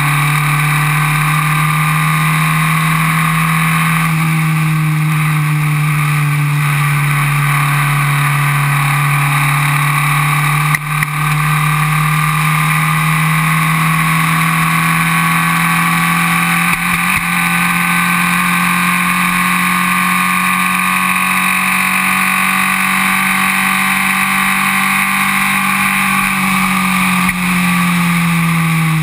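Formula Vee race car's air-cooled 1200 cc Volkswagen flat-four engine, heard from the cockpit, running hard at high revs on track, its pitch drifting slowly up and down and climbing a little near the end. A single sharp knock about eleven seconds in.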